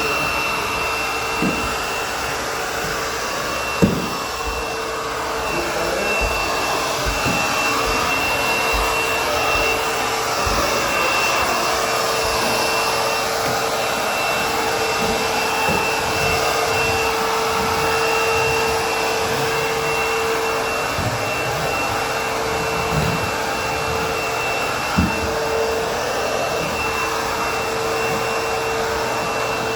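Vacuum cleaner running steadily on the stairs, with a steady whine over its rushing noise. A few short low knocks come through, the loudest about four seconds in.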